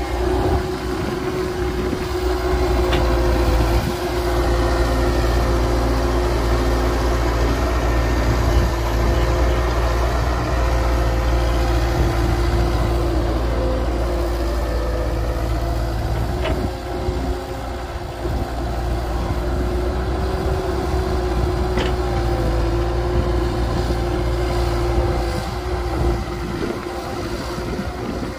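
Heavy diesel machinery of an excavator and dump truck running steadily: a deep rumble with a held mid-pitched hum, and a few faint clicks.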